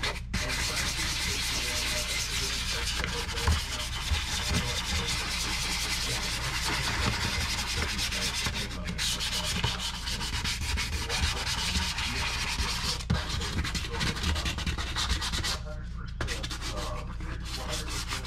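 300-grit sandpaper rubbed by hand over a sink's surface, a steady scratchy sanding noise with a few brief pauses between strokes; the sink is being roughened before painting.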